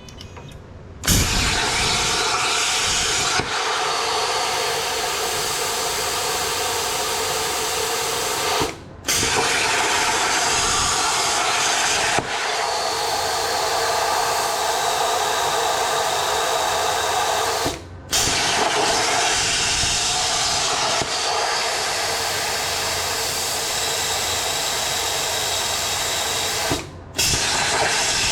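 CNC plasma cutter torch cutting steel: a loud, steady hiss of the arc that starts suddenly about a second in. It stops briefly three times and starts again each time.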